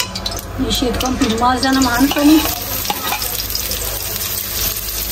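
Sliced onions frying in hot oil in a steel kadhai, with a metal ladle clicking and scraping against the pan as they are stirred. The sizzle grows stronger about two seconds in as the onions go into the oil.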